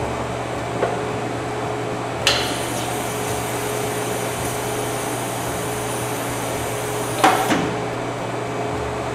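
Water from a wall-mounted sanitizer dispenser rushing into a plastic bucket at a sink: the flow starts suddenly about two seconds in and cuts off after about five seconds, with a knock as it stops. A steady machine hum runs underneath.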